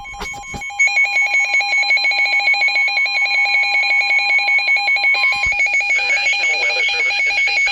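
Emergency Alert System alert tone for a tornado warning: a loud electronic tone that pulses and warbles rapidly, about ten times a second, like a ringing telephone.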